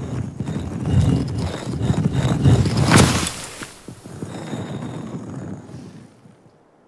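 Cartoon sound effect of heavy stone grinding and rumbling as a stone staircase slides out of a giant statue's mouth, with a sharp crack about three seconds in. The rumble fades away near the end.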